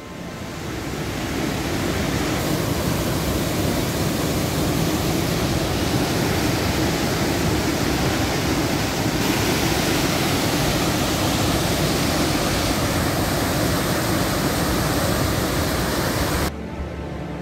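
Mountain waterfall: a steady rush of white water falling through a rocky gorge. It fades in over the first couple of seconds and drops away about a second before the end.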